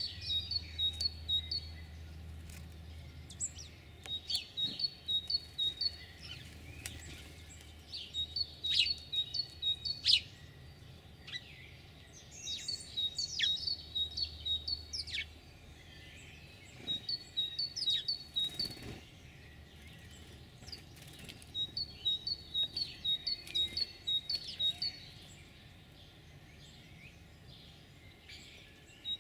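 A songbird singing a short phrase of quick, high notes, repeated about every four seconds, with scattered single chirps between phrases.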